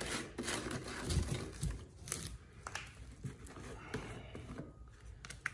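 Plastic screw caps being twisted off gallon jugs of two-part epoxy: scattered small clicks and crinkling of plastic.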